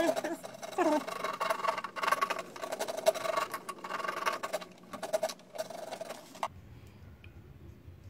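A blade scraping and cutting around the edge of a hole in a plastic car centre console, in rapid repeated strokes that stop suddenly about six and a half seconds in.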